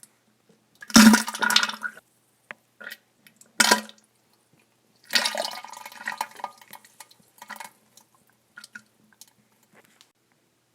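Diarrhea sound effect: wet, spluttering bursts of flatulence and liquid splatter, a loud one about a second in, a short one near the middle and a longer sputtering run after that, trailing off into small splats.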